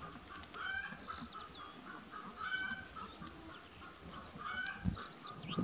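Farmyard poultry calling: short calls repeating about once a second, with faint high chirps behind them and a low thump near the end.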